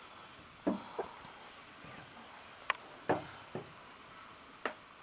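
Dry branches and twigs cracking and snapping as an African elephant browses in the bush: about six sharp cracks spread over a few seconds.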